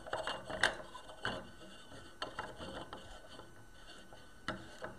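AR-15 handguard being slid over the barrel and turned down by hand onto the barrel nut: faint rubbing and scraping with scattered light clicks.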